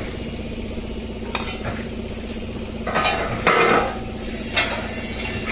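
A welding machine hums steadily while an electric welding arc is struck in several short sizzling, crackling bursts; the longest and loudest comes a little past halfway.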